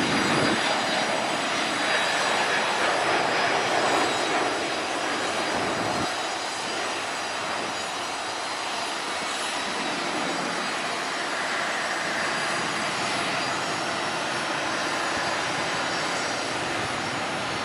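1953 Convair CV-340's two Pratt & Whitney R-2800 radial piston engines turning its propellers at taxi power. A steady engine-and-propeller drone, a little louder for the first six seconds, then even.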